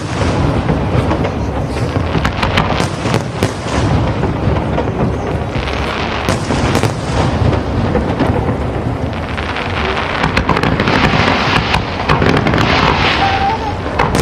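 Fireworks display: a continuous rumble of booms with many sharp bangs, and a stretch of crackling fireworks over the last few seconds.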